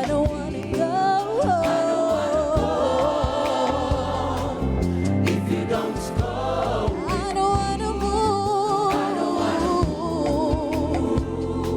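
Gospel worship song performed live: a lead singer with vibrato and backing choir voices over a band with bass and drums.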